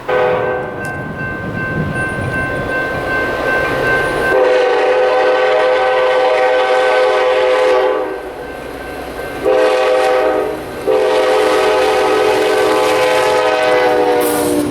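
Diesel locomotive horn sounding a multi-note chord: a long blast of about eight seconds, a short blast, then another long blast, the long-long-short-long pattern of a grade-crossing signal. Rail rumble of the passing train runs underneath.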